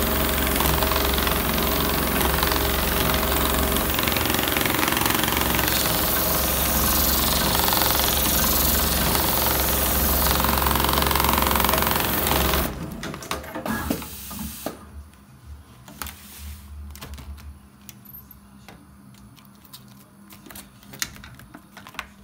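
Dürkopp Adler 911 CNC lockstitch sewing unit stitching at high speed, then stopping abruptly about twelve and a half seconds in. After it, a lower hum fades out over a few seconds, with scattered clicks and knocks.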